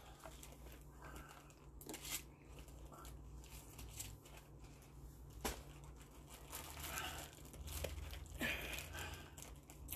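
Faint plastic crinkling and scattered sharp clicks as a plastic sports-drink bottle is handled: its cap unscrewed, the bottle tipped up to drink and the cap screwed back on. A steady low hum runs underneath.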